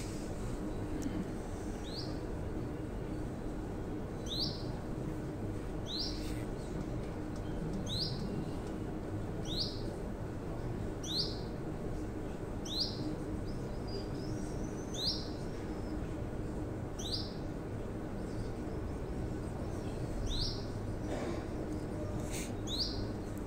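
A small yellow cage bird giving single short, high chirps, one every second or two, over a steady low hum.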